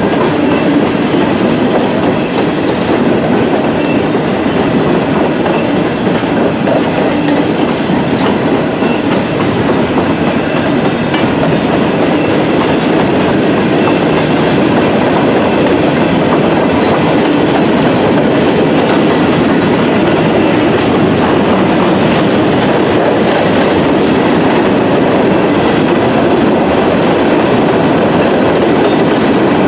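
A freight train of empty Norfolk Southern coal hopper cars rolling past, its steel wheels on the rails making a loud, steady noise.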